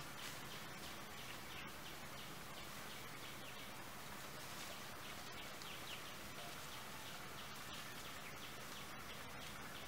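Forest background with a steady outdoor hiss and many faint, short bird chirps scattered across it.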